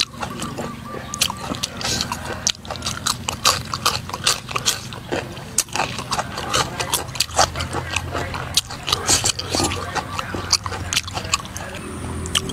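A person chewing raw beef with wet smacking and many quick sharp mouth clicks, over a low steady hum.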